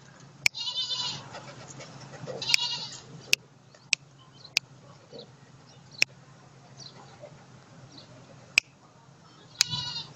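An animal giving three short, wavering bleat-like cries, about a second in, at about two and a half seconds and near the end. Sharp clicks, louder than the cries, come at uneven intervals about eight times between them.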